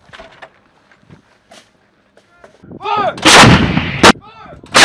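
M777 155 mm towed howitzer firing. Faint clicks for the first two and a half seconds, then the sound swells into a loud blast about three seconds in, a sharp crack about a second later, and a second blast right at the end.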